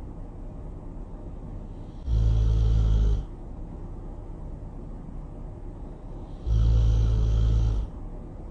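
Really loud snoring: two long, low snores of about a second each, one about two seconds in and the other near the end, with a faint low rumble between them.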